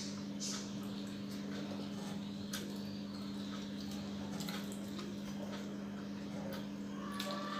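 Quiet eating at a table: a few scattered small clicks and taps from hands and a spoon on steel plates and bowls, over a steady low hum.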